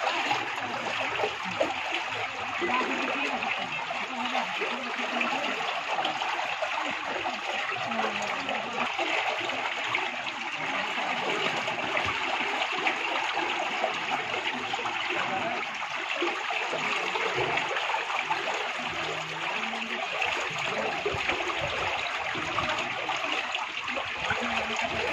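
Steady rush of flood water flowing through a concrete chamber, with splashing as a bamboo-framed hand net is pushed and lifted through it.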